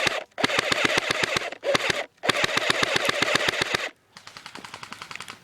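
Airsoft guns firing on full auto: three quick bursts of rapid shots, roughly a dozen a second, then a fainter burst near the end.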